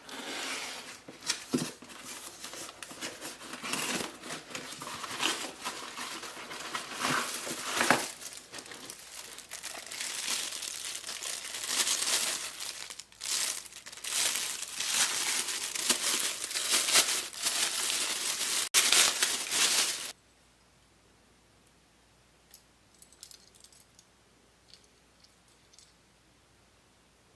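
Packaging being unwrapped from ceiling fan parts: a long stretch of crinkling and tearing that stops suddenly about twenty seconds in, followed by a few faint clicks.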